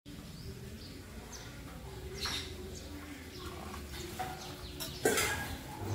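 Hibiscus tea poured from a steel tumbler into a drinking glass, faint, with a sharp knock about five seconds in.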